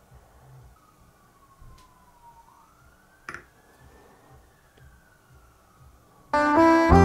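A faint low rumble with a thin tone that slowly falls and then rises in pitch, and a single click about three seconds in. About six seconds in, loud music with keyboard starts abruptly.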